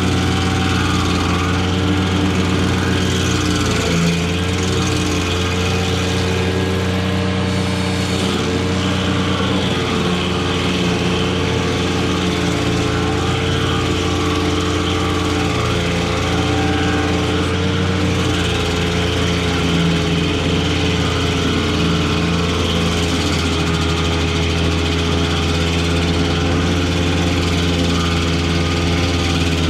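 Ventrac 4500Z tractor's Kubota diesel engine running steadily at working speed, driving the KC220 stump grinder as its cutter wheel chews through a stump and throws wood chips.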